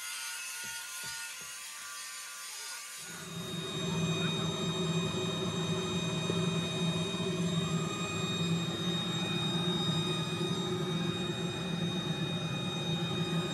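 Workshop machinery running with a steady hum and a few held whining tones, starting abruptly about three seconds in after a thinner hiss with a few faint low thumps.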